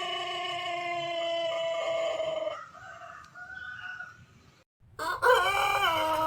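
White Pelung roosters crowing: one long, drawn-out crow tails off about two and a half seconds in. After a short break, a second long crow starts near the end, falling in pitch.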